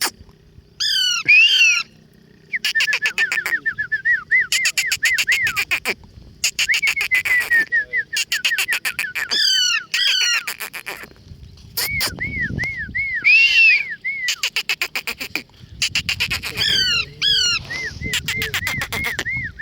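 Pet parrots calling: runs of short, repeated arched chirps, a few harsher descending squawks, and bursts of fast clicking between them.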